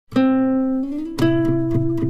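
Background music: a plucked guitar-like note with a slight upward slide, then a second plucked note about a second in.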